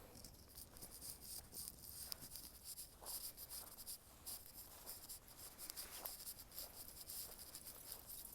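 Faint insects chirping in a steady, rapidly pulsing high buzz, with light scratchy rustling.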